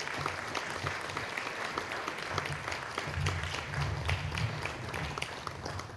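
An audience applauding, a dense patter of clapping hands that keeps up steadily and starts to thin out at the very end.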